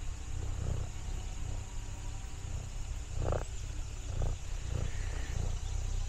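A domestic cat, an orange tabby, purring close to the microphone: a low rumble that swells and fades in short pulses.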